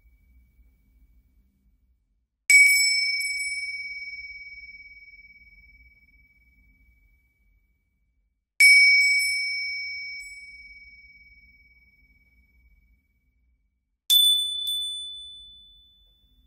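Entrance bell rung three times, several seconds apart, each a single bright ding that rings out and fades away over a few seconds. The first two are at the same pitch; the third is higher, with a quick second tap just after it.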